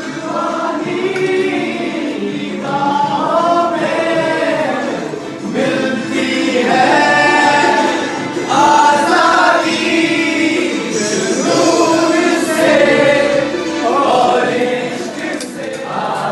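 Music: a soft pop song with a singing voice over a steady instrumental accompaniment.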